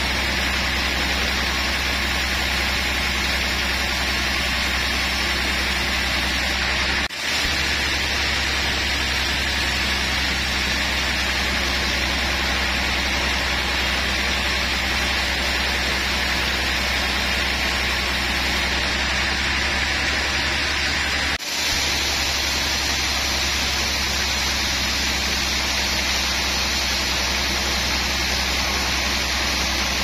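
Large band sawmill running and cutting through a durian log: a steady low motor hum under the constant hiss of the blade in the wood. The sound drops out briefly twice.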